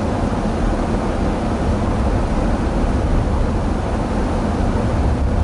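In-cabin sound of a Daihatsu Rocky 4WD with its 1.0-litre turbo engine driving on a snow-covered road: a steady rumble of engine and tyres on packed snow.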